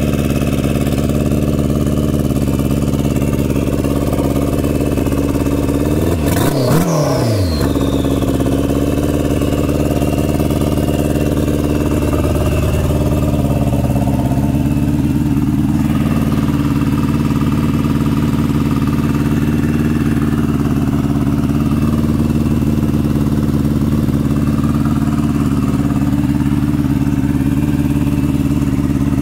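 Turbocharged 2003 Yamaha YZF-R1 inline-four running with an uneven, weird three-cylinder sound because one of its modified injectors is not firing. It idles, revs up briefly about six seconds in and drops straight back, then settles into a steady idle.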